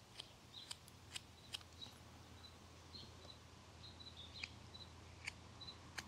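Detail knife whittling a basswood blank: a few faint, crisp slicing clicks as the blade takes corners off, bunched in the first couple of seconds with two more near the end. Faint high chirping sits underneath.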